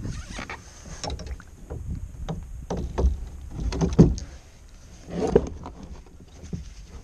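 Irregular knocks and clatters on a plastic fishing kayak's hull and fittings as the angler shifts and handles gear, over a low rumble of wind on the microphone. The loudest knocks come about four and about five and a half seconds in.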